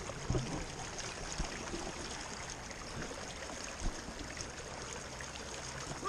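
River water running over rocks, a steady rushing, with a few light knocks.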